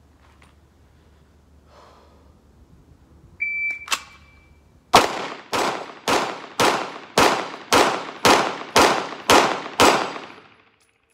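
A shot timer gives one start beep, and about a second and a half later a Glock 45 MOS 9mm pistol fires a string of ten quick shots, roughly two a second, each ringing out under the range's roof.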